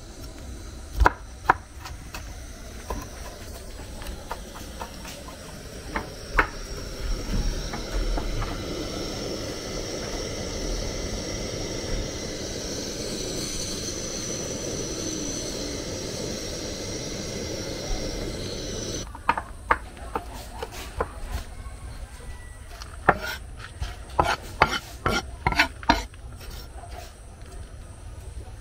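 Knife chopping okra on a wooden cutting board in sharp knocks, giving way after a few seconds to a pot of jute leaves boiling with a steady bubbling hiss. About 19 s in, the rapid chopping on the board returns.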